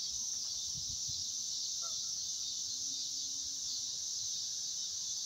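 Loud, steady, high-pitched chorus of insects droning without a break.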